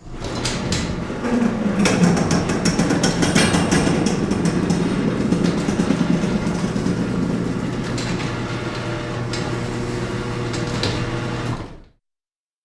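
A door opening with a steady mechanical hum throughout, a brief falling tone in the first two seconds, and rattling clicks over the first few seconds; it fades out just before twelve seconds.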